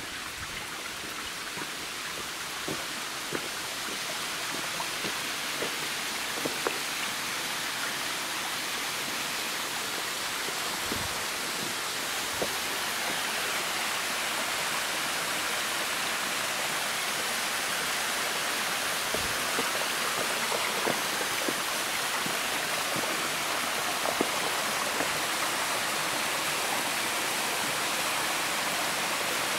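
Small waterfall cascading down rock into a pool: a steady rush of falling water that grows gradually louder as it is approached, with scattered light clicks and knocks over it.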